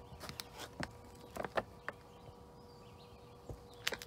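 Plastic bag of bonsai soil being handled and turned, crinkling in short irregular crackles. A faint steady hum sits underneath.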